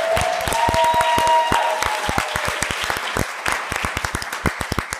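Audience applauding, with a few voices whooping over it in the first two seconds. The clapping thins out and fades near the end.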